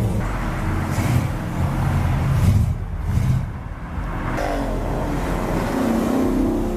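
A car engine running, with a rise in revs about two and a half seconds in before easing off.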